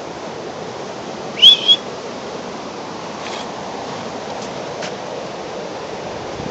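A person gives a short, sharp whistle about one and a half seconds in, rising in pitch and then held briefly, with two quick pulses, as a call to a dog. A steady rushing background noise continues throughout.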